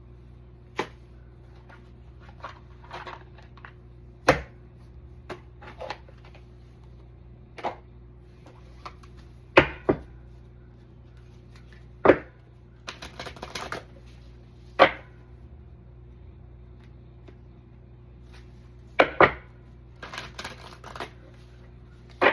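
Oracle card deck being shuffled and handled, with sharp taps of the cards against a table every few seconds and two short stretches of card rustling, over a low steady hum.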